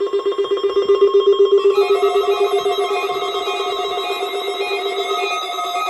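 An electronic tone pulsing rapidly, about seven times a second, like a telephone ringer. About two seconds in, a repeating pattern of short higher beeps joins it.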